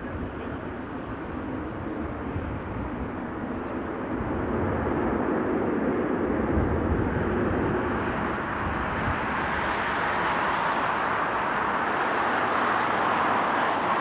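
Boeing 777-300ER's GE90 jet engines running at low thrust as the airliner rolls past on the ground. It is a steady rush that grows louder about four seconds in, and a brighter jet-exhaust rush builds toward the end as the tail passes.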